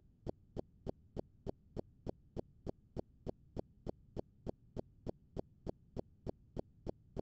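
Faint, regular ticking, about three evenly spaced ticks a second, steady throughout.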